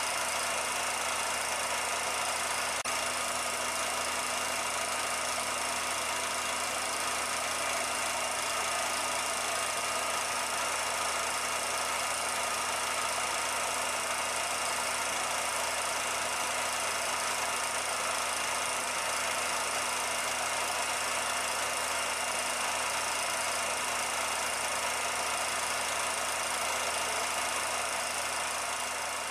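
Steady mechanical running noise, a constant hiss with a low hum, unbroken throughout and starting to fade right at the end.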